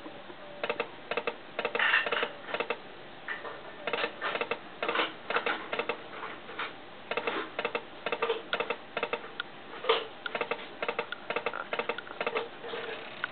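Aristocrat Buffalo slot machine's reel sound effects as the free-game reels spin and stop: a run of short, sharp clicks in quick irregular clusters through the machine's speaker.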